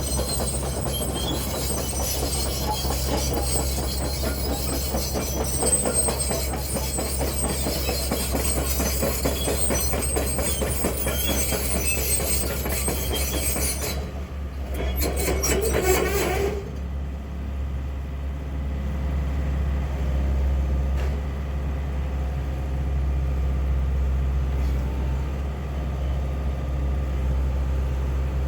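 Wacker Neuson 14504 hydraulic excavator's diesel engine running steadily. Metallic clattering and squealing from the working machine sit over it for the first half and stop about halfway through, leaving the engine alone.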